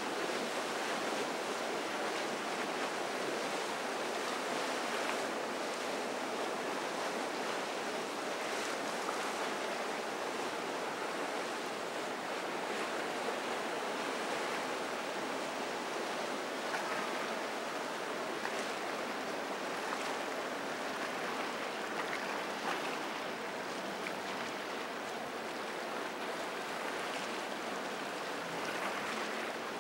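Steady rush of water and wind: waves and wake washing through the inlet.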